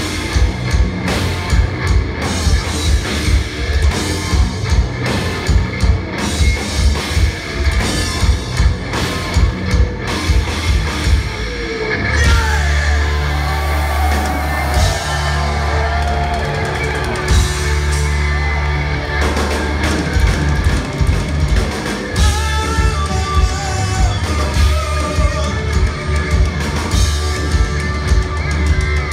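Progressive metal band playing live through a club PA, heard from the crowd. Rapid double bass drum hits drive the first part; about twelve seconds in the drumming drops out for held low bass notes and sliding melodic guitar and keyboard lines, and the fast bass drum returns about ten seconds later.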